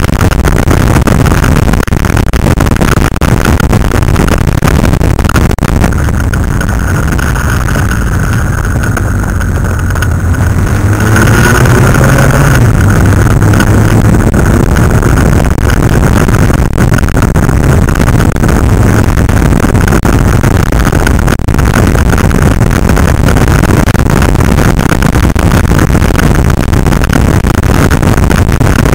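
Wind rushing over the microphone of a camera riding on a moving motorcycle, with the motorcycle engines running underneath. About a third of the way in the wind noise eases briefly as the bikes slow, then an engine rises in pitch as they accelerate again.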